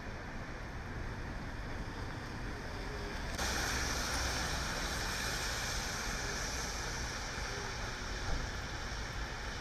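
Cars passing on a rain-soaked street: a steady hiss of tyres on wet pavement over a low traffic rumble, turning suddenly louder and brighter about three and a half seconds in.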